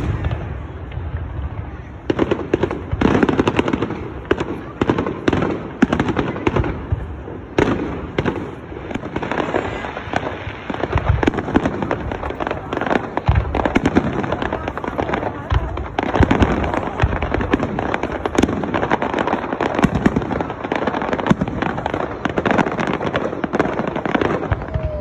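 Fireworks going off: a rapid, irregular run of bangs and crackling bursts, one after another without a break.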